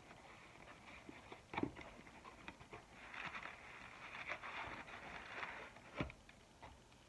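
Cardboard KFC takeout box being opened and handled: faint rustling and crinkling of the flaps, with two sharp taps, one a second and a half in and a louder one about six seconds in.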